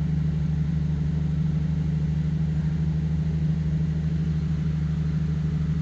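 Nissan 370Z's VQ37 V6 idling steadily while it warms up to burp air out of the cooling system after a heater-hose bypass replacement.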